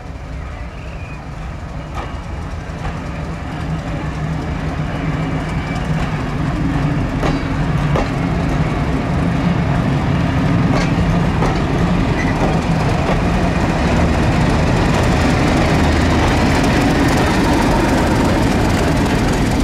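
Passenger coaches rolling past with wheels clicking over the rail joints, followed by a British Rail Class 31 diesel-electric locomotive whose English Electric V12 engine drones louder as it draws near, holding steady over the second half.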